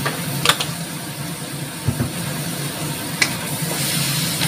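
Vegetables stir-frying in a stainless steel wok: a few sharp clicks and taps early on, then a wooden spatula stirring with a rising sizzle near the end. A steady low hum runs underneath.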